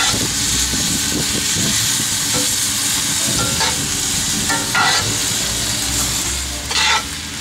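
Chicken, bell peppers and onions sizzling in a hot cast iron skillet as they are stirred, with a steady hiss and a few short, louder stirring strokes.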